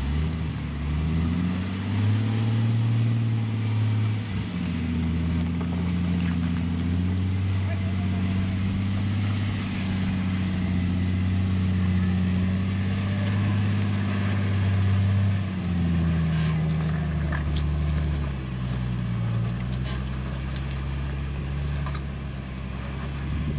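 Jeep engine labouring at low speed as the rig crawls up a steep rock slope. Its pitch climbs in the first second, holds, then falls back about two-thirds of the way through, with a brief dip soon after.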